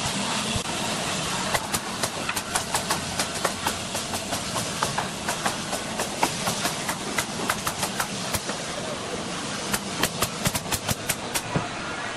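Pneumatic coil nailers firing nails into wooden boards: sharp, irregular shots, a few a second, starting about a second and a half in and coming thickest near the end. A steady hiss of air and machinery runs underneath.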